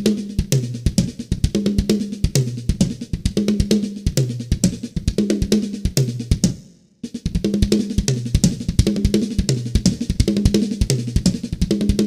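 Acoustic drum kit played as a fast gospel-chops exercise: rapid strokes across snare, toms and bass drum with cymbal hits, in a pattern that repeats about every two seconds. The playing stops briefly about seven seconds in and then starts the same sequence again.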